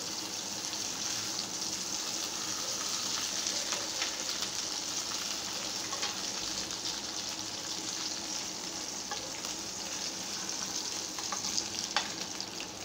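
Whole masala-marinated fish sizzling in a little oil on a nonstick grill pan, a steady hiss, with a few sharp clicks and scrapes of a metal slotted spatula as the fish is turned, the loudest near the end.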